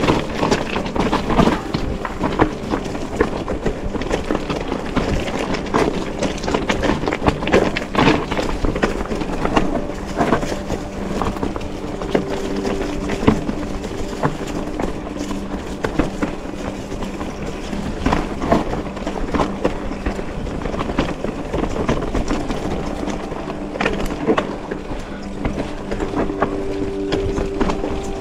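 Mountain bike rattling over a rough, rocky trail on a descent: many irregular sharp knocks and clatters from the bike and tyres over a steady rushing noise.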